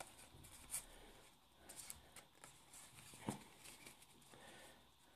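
Faint rustling and crinkling of a foil trading-card booster-pack wrapper being opened and the cards handled, with a few soft, brief clicks over quiet room tone.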